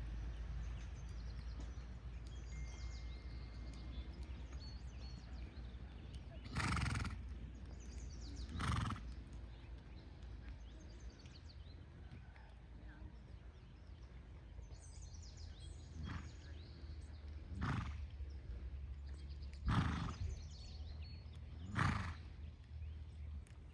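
A horse making six short, loud sounds: two about seven and nine seconds in, then four more about two seconds apart from about sixteen seconds. A steady low rumble runs underneath.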